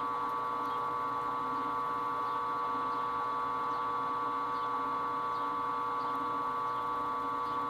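Milling machine spindle running at a steady speed while it turns a coaxial centering indicator: an even motor hum with a whine of several close high tones.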